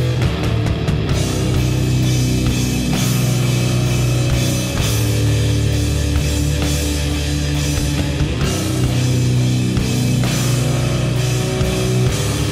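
Loud heavy rock music with distorted electric guitars and a pounding drum kit.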